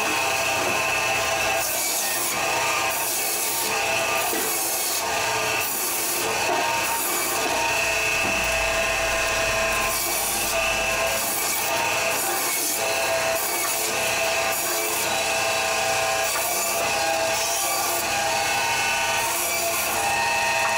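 HBS-250B electric meat-and-bone band saw running with a steady whine as its blade cuts through large beef humerus marrow bones. A rasping hiss swells and drops every second or so as the bone is pushed into the blade.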